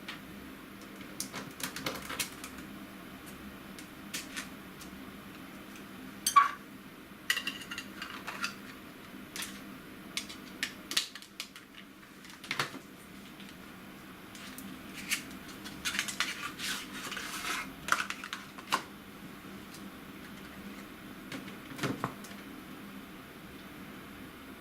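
Irregular small clicks, taps and rustles of objects being handled and set down, with one sharper knock about six seconds in and a denser patch of rustling and clicking about two-thirds of the way through.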